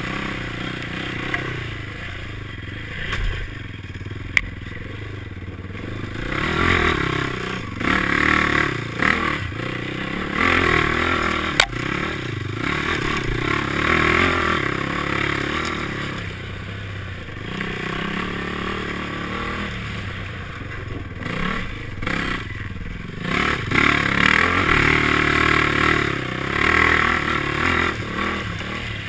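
Honda race quad's engine revving up and down with the throttle in repeated surges, over clatter and scraping from the machine on rough, muddy ground, with a few sharp knocks.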